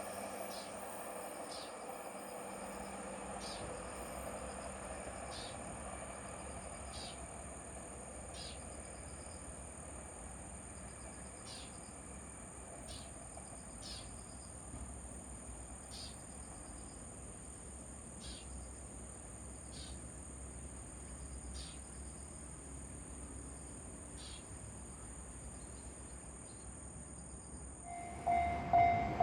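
Steady high-pitched insect drone with short chirps every second or so, over a faint low rumble. Near the end a railway level-crossing warning bell starts ringing, a loud, evenly pulsing electronic ding.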